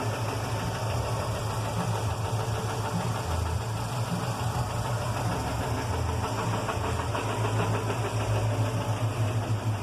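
1976 Chevrolet Opala engine idling with a steady low rumble and an even pulsing beat.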